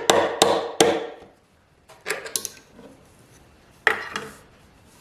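Light hammer taps on a small steel tie-wire staple, bending its points over: three quick strikes in the first second, a few softer ones about two seconds in, and one more near four seconds.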